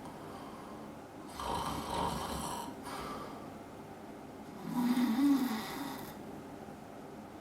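An adult man snoring in his sleep: two snoring breaths about three seconds apart, the second louder, with a low tone that rises and falls. The uploader puts this loud snoring down to his getting older.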